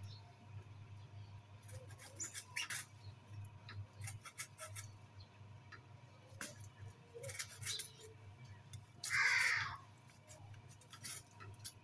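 Hand sickle scraping and cutting at the fibrous base of a young date palm's fronds: scattered scratchy clicks, with one louder rasping cut lasting just under a second about nine seconds in.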